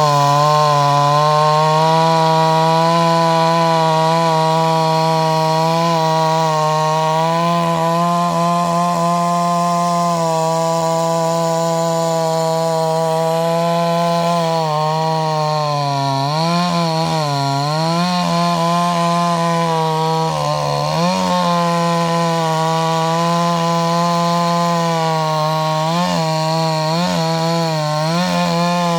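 Chainsaw running at high speed while cutting wood, its engine note held steady and then dipping and recovering several times in the second half as the chain bites under load.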